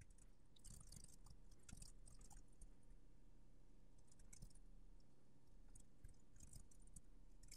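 Faint computer keyboard typing: scattered key clicks in short runs.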